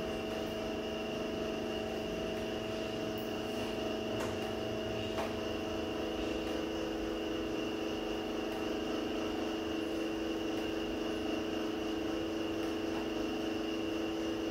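Steady mechanical hum with several steady tones, unchanging throughout, with a couple of faint ticks about four and five seconds in.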